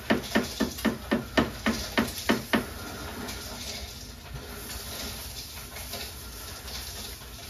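A kitchen utensil strikes sharply and evenly about four times a second, about ten strikes in all, stopping about two and a half seconds in. After that comes a steady sizzling hiss of food cooking on the hot hibachi stone.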